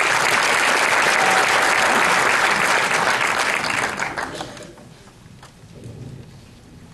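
Audience applauding, dying away after about four seconds.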